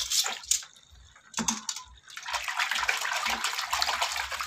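Water splashing and sloshing in plastic buckets as hands and metal tongs move live crabs about. There are a few sharp knocks in the first second and a half, then steadier splashing from about two seconds in.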